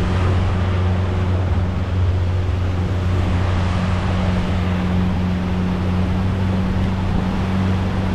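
Boat motor running at a steady cruising speed with the boat under way: an even low hum with a rush of wind and water over it.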